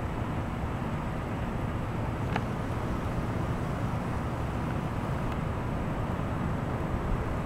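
Steady low rumble of shoreline ambience at the water's edge, with one faint click about two and a half seconds in.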